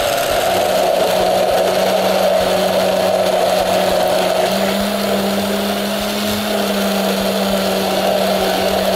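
Hand-held immersion blender running steadily in a tall beaker, puréeing a red pepper, potato and garlic sauce. Its motor hum holds a steady pitch, stepping up slightly about halfway through.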